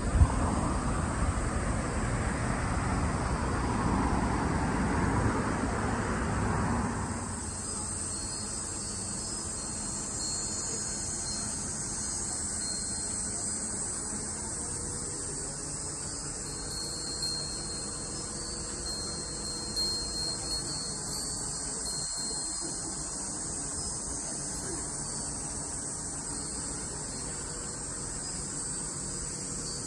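A sharp click at the start, then a rushing wind noise for about the first seven seconds. After that, the steady high-pitched drone of insects singing in summer trees.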